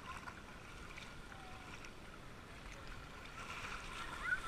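Steady low rush of wind and shallow water at the beach, with faint distant children's voices calling. A short high call, the loudest sound, comes near the end.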